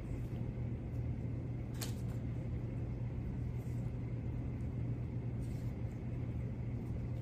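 Steady low machine hum, with one faint click about two seconds in.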